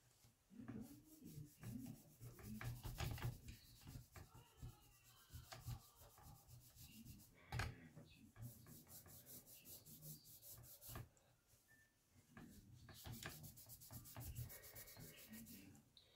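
Faint rubbing of a cloth wiping excess red varnish off the lettering on a Tippmann M4-22 lower receiver, in irregular strokes, with a short light knock about halfway through.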